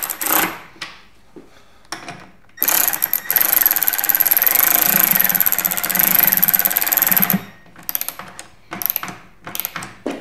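Cordless power driver running for about five seconds as it drives in the bolts that secure a pinball machine's backbox head. A few short clicks come before and after it.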